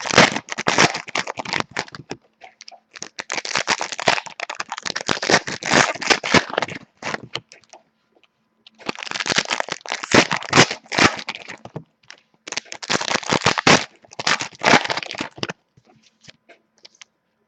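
Trading-card packs and cards being handled: crinkling, crackling foil wrappers and cards rubbing and snapping against each other. The sound comes in four bursts of a few seconds each, with short pauses between.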